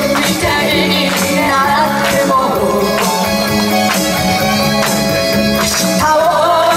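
A pop song performed live: women's voices sing into microphones over a backing track.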